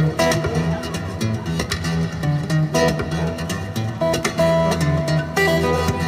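Background music led by guitar, with plucked and strummed notes over a steady bass line.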